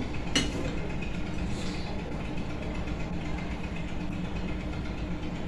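A steady low mechanical hum in the room, with one sharp clink of a spoon against a small serving bowl about half a second in.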